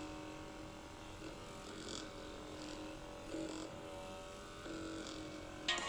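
Handheld fascial massage gun's motor running with a steady buzzing hum, its tone shifting briefly a couple of times as it is pressed against the body. Music comes in right at the end.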